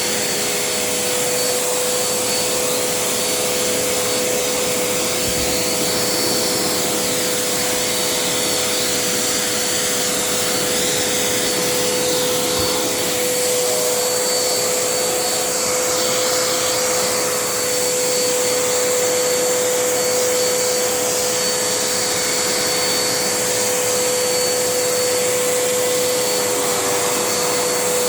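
Dirt Devil Endura Reach upright vacuum cleaner running steadily: a constant motor whine over a loud rush of air as it is pushed over the floor.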